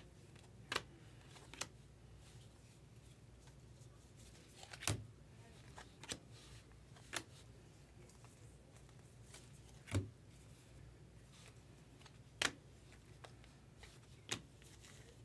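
A stack of Bowman Chrome baseball cards being flipped through by hand, card by card. About eight short, sharp clicks come one every one to two seconds over a faint steady low hum.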